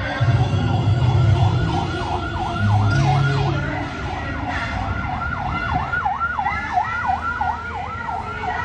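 Emergency vehicle siren in fast yelp mode, sweeping up and down about four times a second, with a low hum coming and going in the first few seconds.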